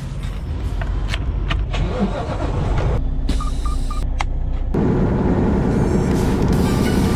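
Freightliner Cascadia semi truck cab: a few clicks and three short beeps, then about two-thirds of the way in the truck's engine and road noise come up loud and steady as it drives on the highway.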